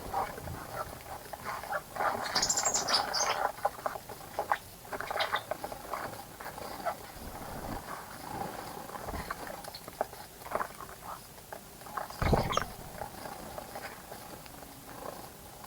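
Birds bathing in a bird bath: a run of quick, light splashes and wing flutters, with a brief high call between two and three seconds in and a dull thump about twelve seconds in.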